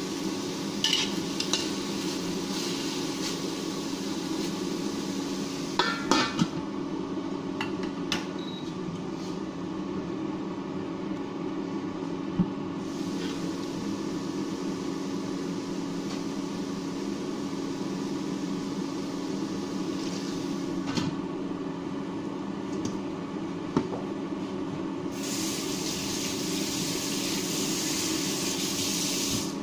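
A spatula scraping and clanking against a wok as green chili peppers and pork are stir-fried, over the steady hum of an induction cooktop. Soon after liquid is poured in, the wok sizzles, and the sizzle grows into a stronger hiss near the end.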